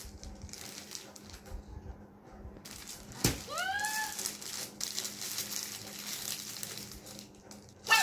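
Thin plastic packaging crinkling and rustling as it is handled, getting louder about three seconds in. Around that point a short, high-pitched, gliding voice sound rises and falls.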